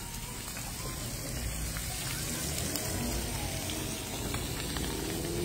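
Chicken pieces frying in a pan of hot oil: a steady sizzle with small scattered crackles.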